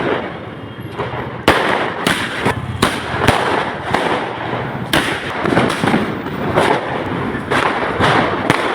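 Firecrackers going off: a series of sharp bangs with crackling between them, the loudest about a second and a half in.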